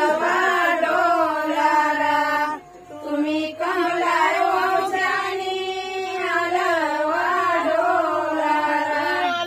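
Women's voices singing together in a slow, chant-like song with long held notes, breaking off briefly about two and a half seconds in before carrying on.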